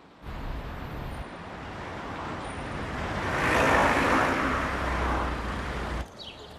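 A car passing close by, its engine and tyre noise swelling to a peak about four seconds in and easing off, then cutting off suddenly near the end.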